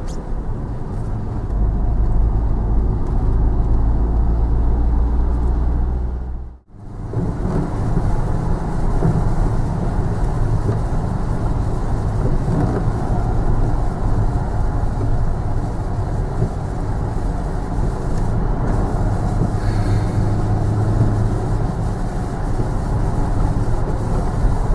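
KTM X-Bow sports car engines running, with a short break about six and a half seconds in where the sound drops out and resumes.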